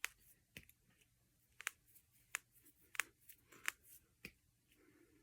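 Finger knuckles being cracked one after another: about nine faint, sharp pops at irregular intervals, a couple of them in quick pairs.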